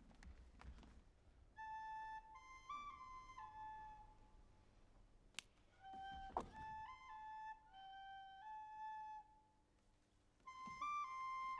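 Sparse live music: a single high pitched instrument plays a short phrase of stepping notes three times, with pauses between. A sharp click about five and a half seconds in, followed by a thump, cuts across the second phrase.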